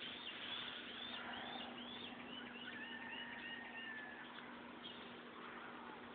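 A bird singing: a run of about ten short, arching chirps that come faster and drop in pitch over about four seconds, with a thin steady whistle under the later notes.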